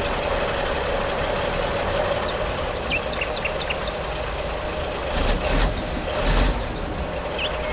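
A motor running steadily with a constant hum, while birds chirp in short bursts about three seconds in and again near the end. Two low thumps come around five and a half and six and a half seconds in.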